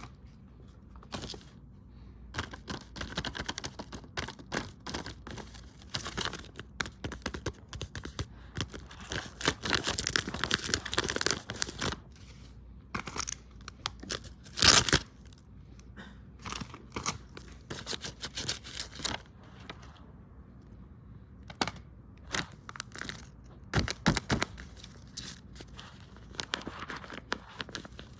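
Packaging being opened and handled by hand: irregular rustling, crinkling and tearing, with scattered sharp clicks, the loudest about fifteen seconds in.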